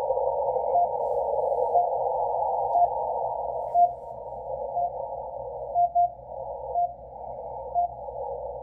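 RWM Moscow time signal on 9996 kHz received in CW mode on a shortwave receiver fed from an end-fed wire antenna: short beeps about once a second over narrow-band static hiss, with one slightly longer beep about four seconds in and a doubled beep about six seconds in.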